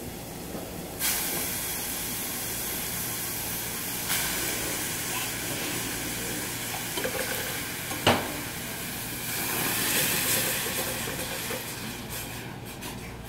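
Chopped fresh tomatoes sizzling with a steady hiss in a hot stainless steel saucepan on a gas burner; the sizzle jumps up suddenly about a second in as the tomatoes hit the pan, and again about four seconds in. A single sharp knock about eight seconds in, and wooden-spoon stirring near the end.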